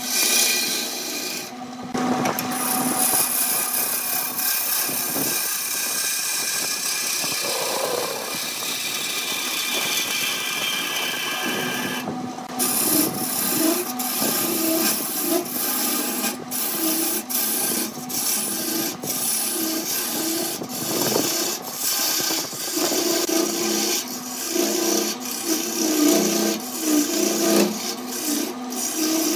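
Lathe tool cutting a spinning wooden blank on a Burt wood lathe: a continuous scraping, rasping hiss of wood being turned, over the lathe's steady hum. The cut breaks off for a moment twice, about two seconds in and again about twelve seconds in.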